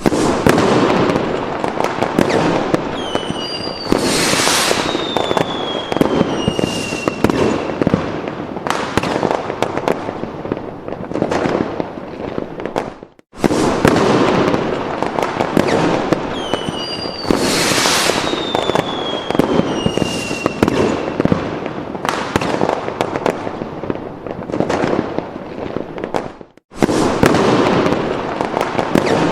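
Fireworks sound effect: a dense run of bangs and crackles with whistles gliding down in pitch. The same stretch of about thirteen seconds plays twice, with a brief break between.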